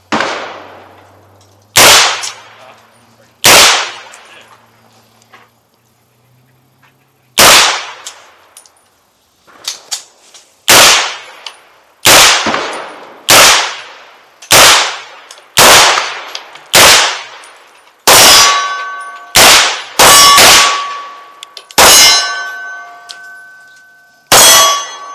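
Aero Precision EPC-9 9 mm pistol-caliber carbine firing about fifteen single shots at an uneven pace, quicker in the second half. In the last third, several shots are followed by the ringing of a hit steel target.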